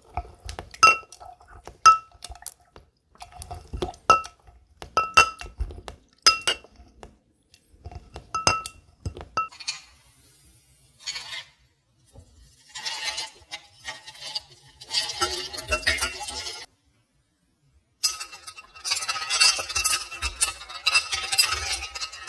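Metal muddler pressing lime and mint in a tall highball glass, knocking the glass bottom about once a second with ringing clinks. Then chunks of clear ice clatter into the glass. Near the end, a bar spoon stirs the ice, giving a steady run of clinks against the glass.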